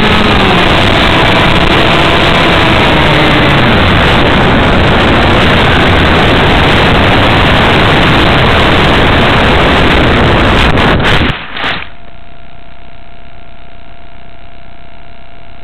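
Onboard microphone of a model aircraft in flight: loud air rush with the motor's tone gliding and fading in the first few seconds. About 11 seconds in the rush stops abruptly with a couple of knocks as the plane comes to rest in grass, leaving a quieter steady hum with a thin whine.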